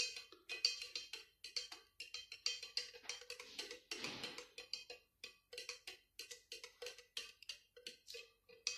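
A stirrer clinking against the wall of a glass beaker as a batch of liquid soap (sulfonic acid mixed into caustic soda solution) is stirred slowly by hand: light clicks, about three a second, each with a short glassy ring.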